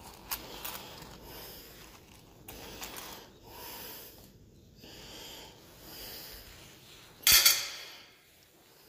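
Hands rummaging in a leather wallet for cash: soft rustling and small clicks of coins and notes, with one brief, much louder noise about seven seconds in.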